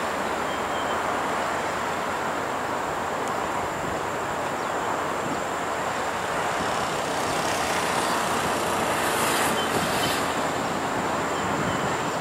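KTM Komuter electric commuter train rolling along the track, a steady rumble with a faint hum, and a few brief clicks about nine to ten seconds in.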